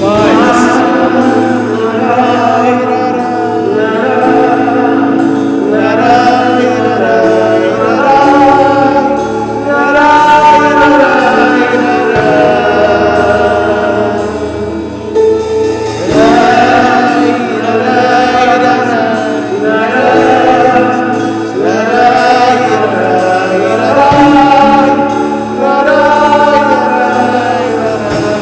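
Live gospel worship music: several voices singing a slow song together over held keyboard chords.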